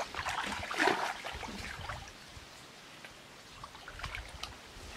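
Bare feet wading through shallow muddy water, sloshing and splashing in uneven steps. The splashing is loudest in the first second, then quieter with a few more splashes near the end.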